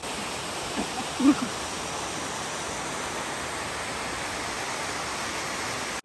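Hindmarsh Falls, a small waterfall cascading over rocks, giving a steady rush of water. A brief voice sound comes about a second in.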